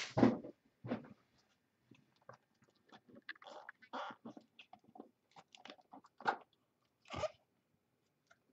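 Hands handling and opening a small trading-card box: scattered clicks, scrapes and crinkles of cardboard and plastic, the loudest a knock just after the start.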